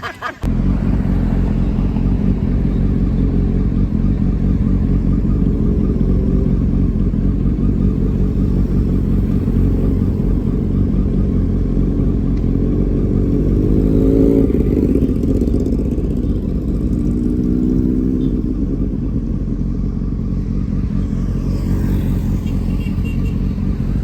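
Motorcycle on the move: a loud, steady engine rumble with wind noise on the microphone, starting abruptly. The engine note rises twice around the middle.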